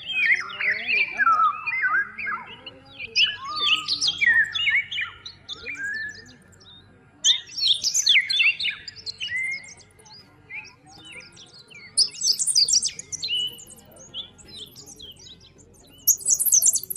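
Several songbirds chirping and singing: many short, quick, varied calls in clusters, with a short lull about two-thirds of the way in and a flurry of very high, thin chirps near the end.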